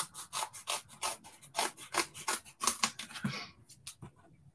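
Scissors snipping through a sheet of foam adhesive to cut a thin strip: a quick run of short snips, about four a second, which stops about three and a half seconds in.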